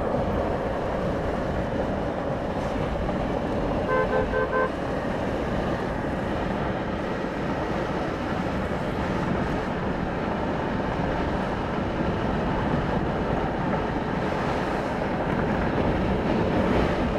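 Steady road and wind noise inside a moving vehicle on a wet highway, with three short beeps about four seconds in.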